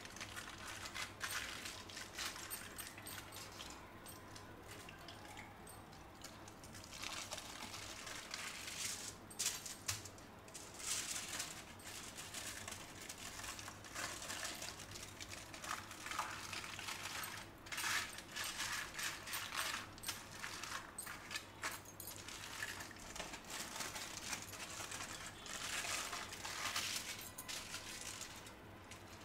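Aluminium foil crinkling and crackling in irregular bursts as hands roll and fold it around a soft slab of dough.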